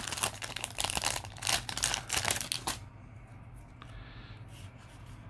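A Yu-Gi-Oh! booster pack's foil wrapper is torn open and crinkled in a dense crackling rustle for nearly three seconds. Then comes fainter rustling, with a few soft ticks as the cards are handled.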